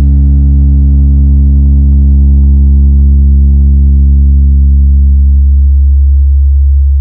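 Very loud, deep sustained bass tone from a parade sound-system rig, held steady with a droning buzz of overtones; the higher overtones fade out about five and a half seconds in while the deep bass keeps going.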